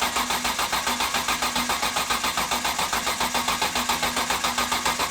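Rebuilt BMW S54 straight-six being turned over on the starter motor with its fuel injectors unplugged, so it cranks without firing: an even, rapid pulsing of about nine compression strokes a second that stops abruptly about five seconds in.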